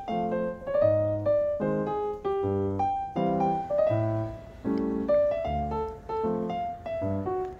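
Background music: a light piano tune, short melody notes over a bass note repeating about once a second.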